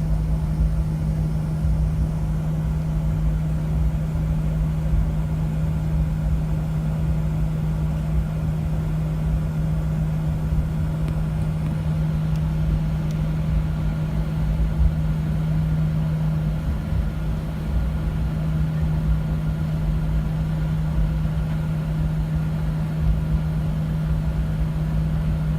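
Steady airliner cabin noise: a constant low hum with a single held tone over a low rumble and an even hiss of air.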